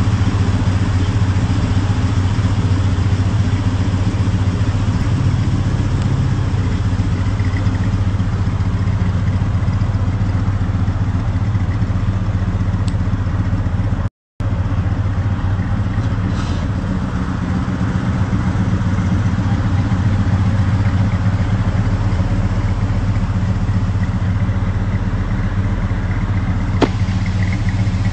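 Chevrolet C10 pickup's engine idling steadily through its side exhaust, dropping out for a moment about halfway through.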